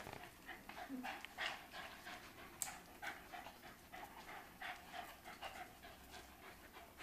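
Small dogs panting and sniffing up close, a string of quick, faint breaths, with one sharp click near the middle.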